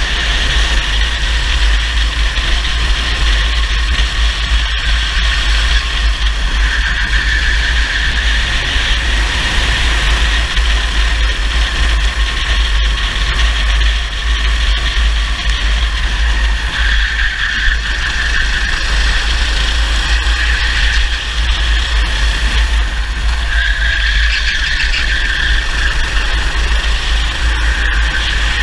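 Racing kart engine running at speed, recorded from an onboard camera, its note shifting up and down in stretches with throttle through the corners. It sits under a heavy wind rumble on the microphone.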